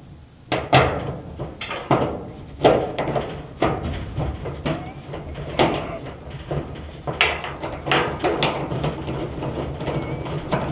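Close, irregular clicks, knocks and scrapes of hands and a small tool working at the metal terminal block of an electric range, fastening the power cord's wires to the terminals.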